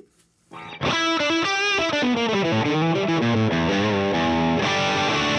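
Electric guitar played through an Axe-Fx III modelling a Plexi 50W 6CA7 amp on a crunch setting: after a short pause, a distorted lick of quickly changing notes starts about a second in, settling into longer held notes and chords near the end.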